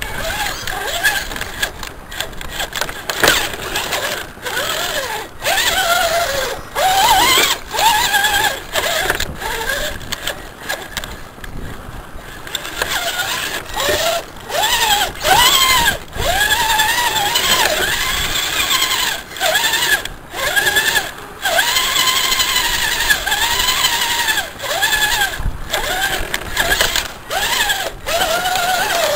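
Electric motor and gear drive of a scale RC crawler truck whining in short throttle bursts, the pitch rising and falling as it crawls through mud. Sharp clicks or knocks come every second or so.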